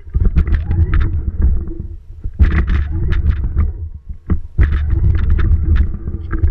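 A child's battery-powered Yamaha Raptor ride-on toy ATV driving over bumpy grass, heard from a camera mounted on it: a heavy rumble with its plastic body rattling and knocking and a steady drive hum. It runs in three stretches with two brief lulls.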